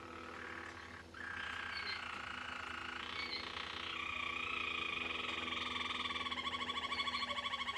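Harz Roller canary singing one long unbroken rolling song; about a second in it settles into a steady roll, and near the end it turns into a fast, evenly pulsing trill.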